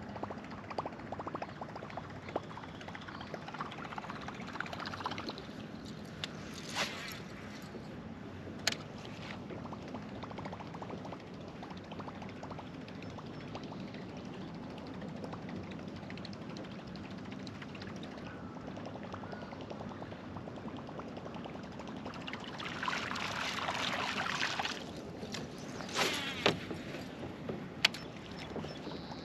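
Small-water lapping and trickling against a fishing kayak's hull, with a few sharp clicks or knocks, the loudest near the end. A brief rush of higher hiss comes about two thirds of the way through.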